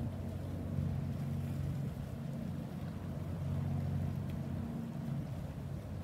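Boat engine running steadily, a low, even droning hum.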